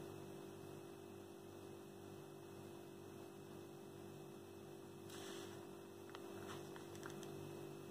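Steady low electrical hum, with a few faint brief scratches of a pen on notebook paper from about five seconds in.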